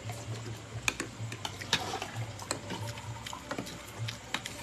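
Scattered small clicks and taps of eating at the table, fingers and food on a plate, irregular and a few each second, over a faint low hum that swells and fades.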